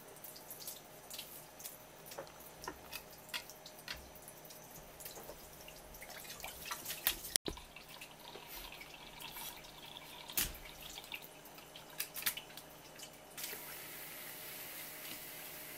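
Knife scraping and working over a whole striped jack (shima-aji) on a wooden cutting board, giving irregular short, wet, scratchy clicks. A steady hiss sets in near the end.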